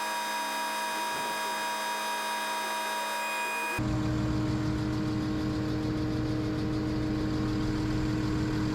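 Sermac concrete pump truck's engine running at a steady pitch. About four seconds in, the sound changes abruptly to a louder, deeper engine running.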